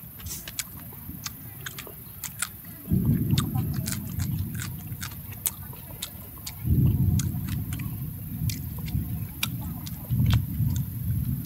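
A person chewing cooked fish, with many sharp crackling clicks as the crisp skin and bones are bitten and picked apart. Loud low rumbling stretches come in about three seconds in, near seven seconds and again about ten seconds in.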